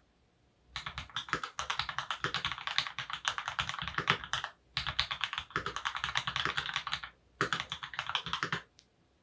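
Custom mechanical keyboard with lubed Opblack switches on an FR4 plate, typed on in quick runs of keystrokes. The typing starts under a second in, pauses briefly twice and stops shortly before the end.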